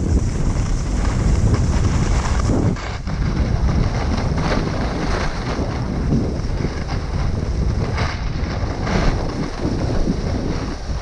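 Wind buffeting the microphone, with the hiss and scrape of skis sliding over snow on a steady downhill glide.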